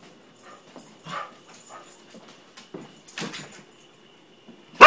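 Mixed-breed dog alarm barking: two quieter barks about one and three seconds in, then a loud bark at the very end.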